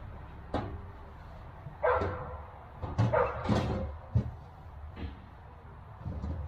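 A dog barking in short, separate barks, about eight of them, the loudest about two and three and a half seconds in.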